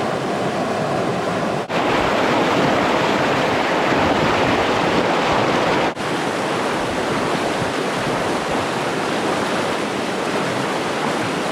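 Steady rush of a fast, snowmelt-swollen river, broken by two momentary drop-outs.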